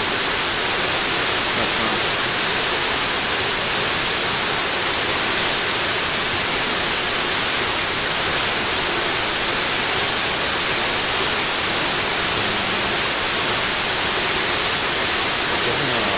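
Large waterfall pouring steadily: a constant, even hiss of falling water.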